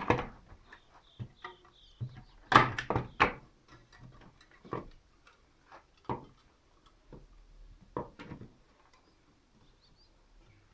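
Sharp clicks and knocks from working a wooden beehive frame with wire and a stapler, in irregular single hits and a quick run of three about two and a half seconds in.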